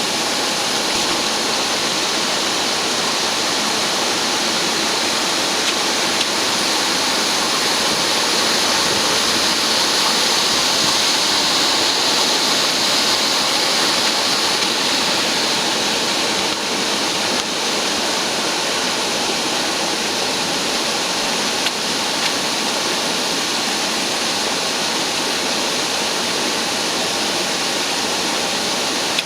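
Industrial vacuum cleaner for duct cleaning running continuously: a steady rush of air with a strong hiss, swelling slightly toward the middle.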